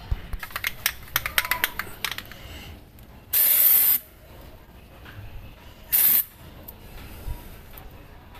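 Aerosol can of undercoating: a run of quick rattling clicks as the can is shaken, then two bursts of spray, the first about half a second long and the second shorter.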